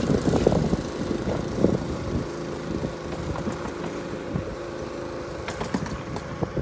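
An air compressor's engine running steadily, with a few scattered light knocks.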